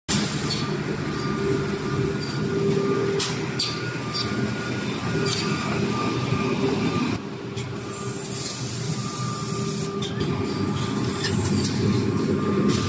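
Automatic PVC edge banding machine running: a steady motor hum with scattered sharp clicks, and a stretch of high air hiss lasting about a second and a half, about two-thirds of the way in.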